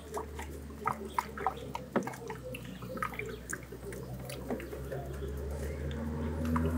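Water in the radiator's filler funnel gurgling and plopping as the radiator hoses are squeezed to push trapped air out of the cooling system. It comes as short, irregular pops over a steady low hum.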